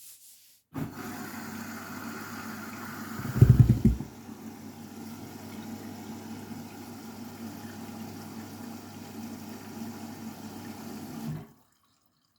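Candy washing machine starting its Delicates 30 cycle: a steady hum with water rushing in, typical of the inlet valve filling. There is a heavy low surge about three seconds in, and the sound cuts off suddenly near the end.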